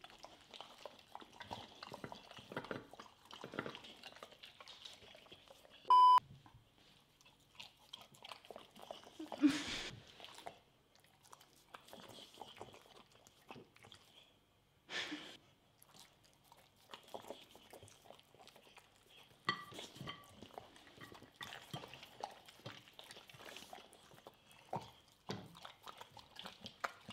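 Dogs, an American Staffordshire terrier and a boxer, chewing and licking at lemon pieces, with scattered wet smacks and small crunches. A short, loud electronic beep sounds about six seconds in.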